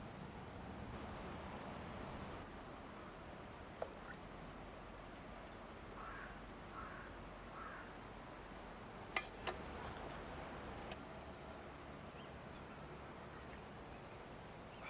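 A crow cawing three times in quick succession, faint over a steady low hiss, with a few sharp single pops scattered before and after.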